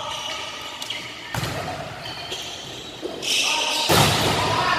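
Volleyballs being hit and bouncing on a hard gym floor during a spiking drill, with players calling out. There is a sharp hit about a second and a half in and a louder one near the end.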